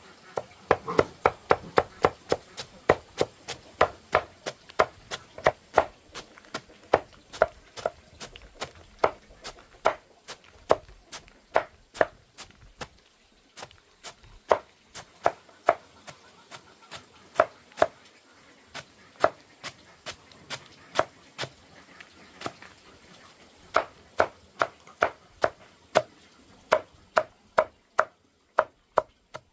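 Knife chopping on a cutting board: sharp, even strokes about two to three a second, with a couple of short pauses.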